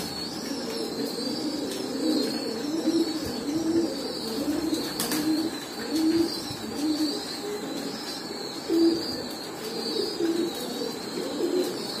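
A flock of domestic pigeons cooing, a steady run of low coos coming more than once a second.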